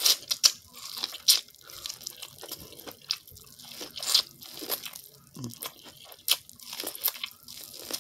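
Close-up biting and chewing of seasoned corn on the cob: irregular crunches as kernels are bitten off the cob, with wet mouth sounds between them.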